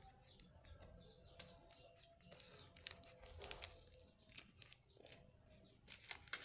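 Fingernails scratching and picking at clear plastic packing tape on a cardboard parcel, with short scratchy rustles and bits of tape peeling; the sounds come in scattered bursts, busiest in the middle and again near the end.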